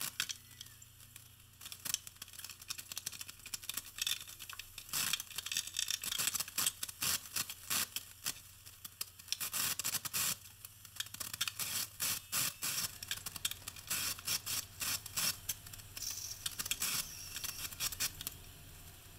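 A 1/4-inch square-notch steel trowel scraping thin-set mortar, in many quick, rasping strokes.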